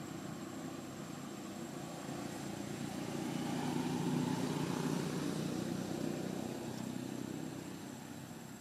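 Low drone of a distant engine passing by, growing louder to a peak about four seconds in and then fading away.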